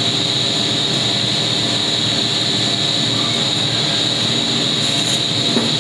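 Extrusion blow molding machine running: a steady, loud mechanical drone with a constant high whine over it.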